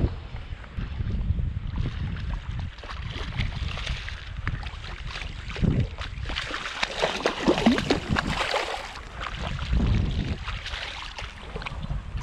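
Wind buffeting the microphone throughout, with water splashing for a few seconds in the middle as a hooked fish is brought to the surface near the angler's hand.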